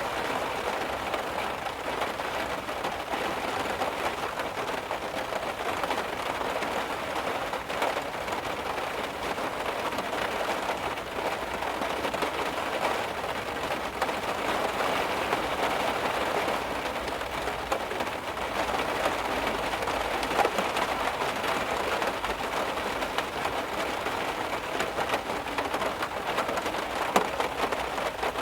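Heavy rain drumming steadily on a car, a dense patter of drops with a few louder individual hits.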